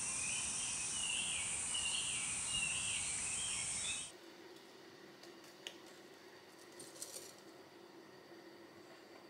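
Woodland insect chorus, a steady high shrill with a repeating warbling call over it, that cuts off abruptly about four seconds in. What follows is a faint low hum of room tone with a few small clicks.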